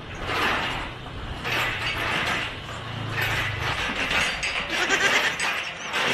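A man wailing in an exaggerated mock cry.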